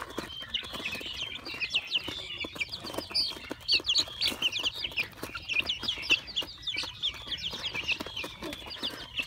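A flock of young chickens cheeping continuously with many short, high chirps, several a second, while they peck at feed, with light ticking taps mixed in.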